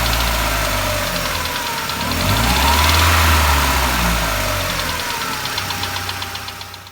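ZMZ-406 2.3-litre inline-four engine revved up and let fall back twice, with a fine regular ticking over the engine note. The ticking is the knock being traced, barely there at idle.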